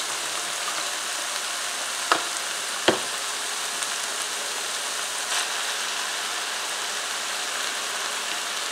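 Ground beef, green peppers and onions sizzling steadily in a skillet, with two sharp clicks about two and three seconds in.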